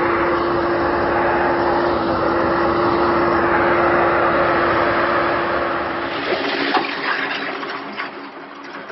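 HEN AG road milling machine running as it crushes stone: a dense, steady rushing noise with a constant hum. The sound falls away about six seconds in, leaving a few sharp clicks and knocks.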